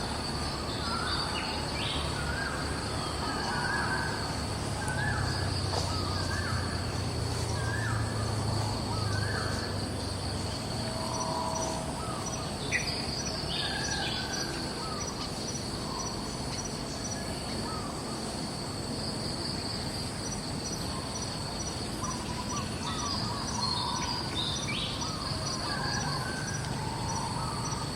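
Natural outdoor ambience: a steady, shrill insect chorus that swells in waves, with many short bird chirps and calls over it. A low hum sits underneath for a few seconds near the start.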